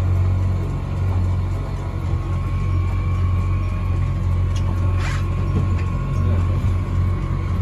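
Boat engine running steadily while the boat cruises slowly: a steady low hum with a faint constant whine above it. A brief knock sounds about five seconds in.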